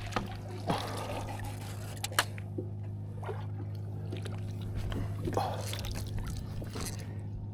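Water splashing and lapping against a boat hull, in two short bursts about a second in and near the five-second mark, over a steady low hum, with a couple of sharp clicks.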